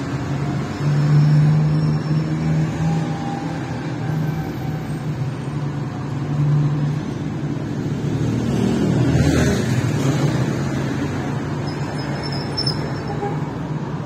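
Street traffic: a low, steady engine hum with a vehicle passing close by about nine seconds in.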